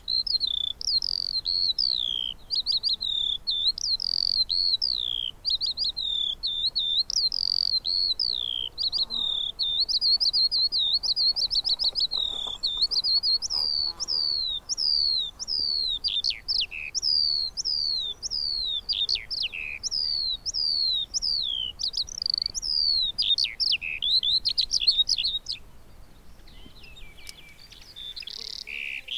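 Eurasian skylark (Alauda arvensis) singing its long, unbroken song of rapid chirps, trills and warbles, high-pitched and without pause. The song drops away briefly near the end.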